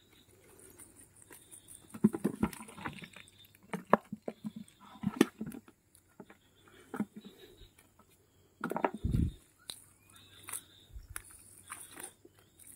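Small fish flapping and slapping on wet mud inside a cast net, a patter of irregular short taps with quiet gaps between them, and a heavier thump about nine seconds in.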